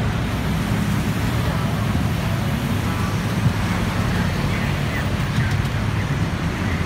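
Steady road traffic noise from a busy street: a continuous low rumble of car engines and tyres.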